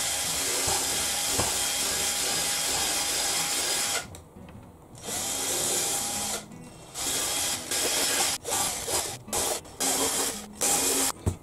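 Cordless drill widening a hole in a leather suitcase's corner: a steady run of about four seconds, a shorter run after a brief stop, then a string of short stop-start bursts.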